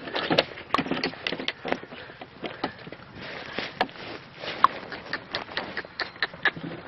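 Irregular clicks, knocks and scrapes of a donkey cart ride: the cart rattling as it jolts along, with the phone rubbing against the burlap sacks of its load.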